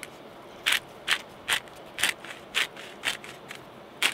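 Hand-twisted pepper grinder cracking peppercorns: a row of short, dry crunches, about two a second, starting a little under a second in.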